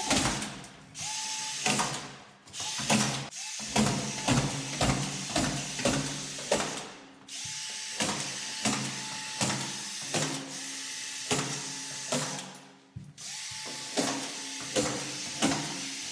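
Drywall screw gun running with a steady whine and driving screws through gypsum board into metal studs, with repeated sharp clicks as each screw is set. The motor drops out briefly a few times between screws.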